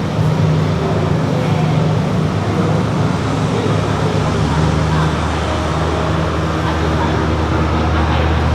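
Motor vehicle running, a steady low drone with road noise that changes pitch about four seconds in.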